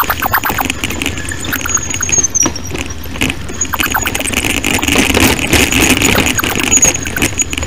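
Bicycle rattling and jolting over a rough trail, many quick knocks and clatters, with a thin, high, steady squeal running throughout.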